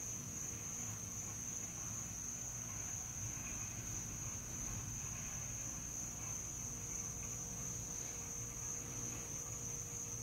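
Steady, unbroken high-pitched chorus of night insects, with a faint low hum beneath it.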